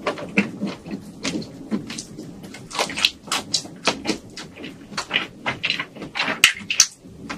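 Close-miked eating sounds: chewing and smacking on prawn meat, with crackling and snapping as gloved hands peel the prawn shells apart. A dense, irregular run of clicks, with a couple of sharper snaps near the end.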